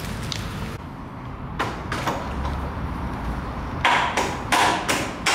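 Metal knocks and clanks from unbolting a motorcycle's steel shipping crate. Two light knocks come about one and a half seconds in, then a quick run of about five louder clanks near the end.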